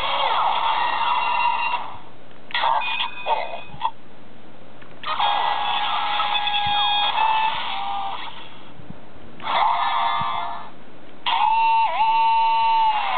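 A Kamen Rider W Gaia Memory candy toy (No. 07, Hibiki) playing its built-in electronic sound effects through a tiny speaker: about five short ringing-tone clips in turn, with pauses between. The last clip has a pitch that dips and comes back up.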